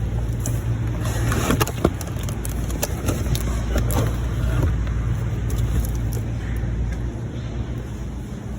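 A loaded shopping cart rolling over a store floor: a steady low rumble from the wheels with frequent clicks and rattles from the cart and its contents.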